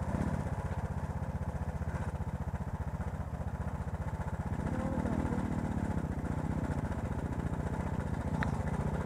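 Off-road motorcycle engine idling steadily with an even, rapid pulse, slightly louder from about halfway through.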